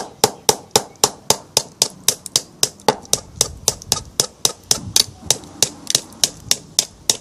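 A hammer tapping the spine of a knife at a steady pace of about four strikes a second, driving the blade into a block of wood to chop a piece off.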